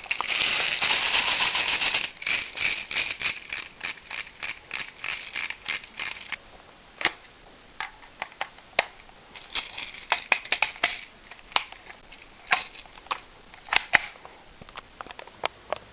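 Toy gun shooting at a target range. It opens with a rapid burst of about two seconds, then goes on in many sharp single shots and impacts at irregular intervals.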